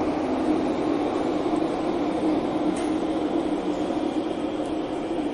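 Interior of a Thomson-East Coast Line CT251 metro train running between stations: a steady cabin rumble with a low, even hum.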